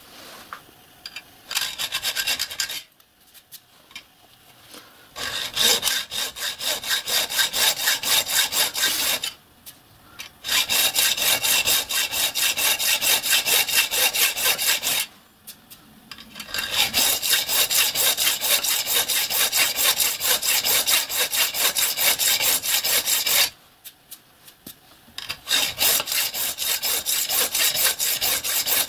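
Hand hacksaw cutting a metal block clamped in a bench vise, in quick back-and-forth strokes. The sawing comes in several runs broken by short pauses.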